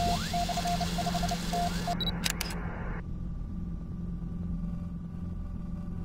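Electronic noise soundtrack: a hiss with broken, stuttering beeps and a short rising sweep over a low steady hum. A few sharp clicks come about two seconds in, and at about three seconds the hiss cuts off, leaving only the low hum.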